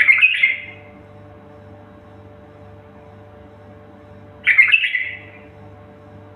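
A songbird giving two short calls, one at the start and one about four and a half seconds later, over a steady low hum.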